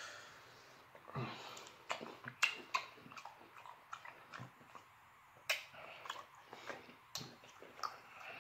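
Close-miked chewing and lip smacking as a man eats cooked jumbo shrimp dipped in cocktail sauce: a string of short, irregular smacks and clicks.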